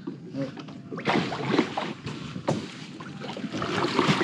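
Kayak paddles dipping and splashing in lagoon water, a few strokes roughly a second apart.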